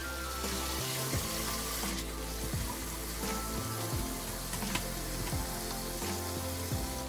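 Kitchen tap running in a steady stream into a plastic bowl of water in a stainless-steel sink, rinsing chamnamul greens.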